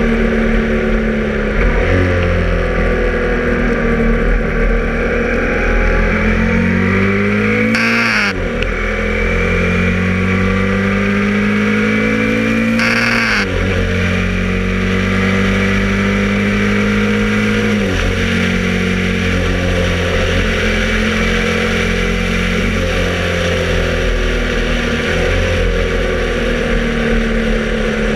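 Cagiva Elefant 750's air-cooled V-twin engine running under way, its note rising and falling with the throttle. There are quick swings in pitch about 8 and 13 seconds in and another change near 18 seconds.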